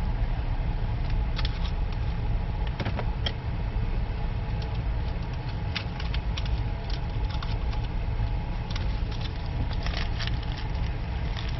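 Car engine idling, heard from inside the cabin, with scattered light clicks and rattles.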